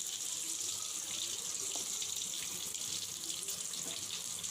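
Chopped onion sizzling in hot oil in a pan, a steady hiss.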